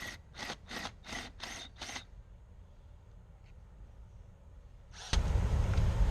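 Six or seven quick scraping strokes of a hand tool, about three a second, then a pause. About five seconds in, a loud steady rushing noise starts abruptly.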